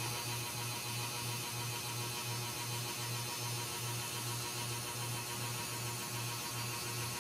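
Low electrical hum pulsing evenly about three times a second, over a faint steady hiss.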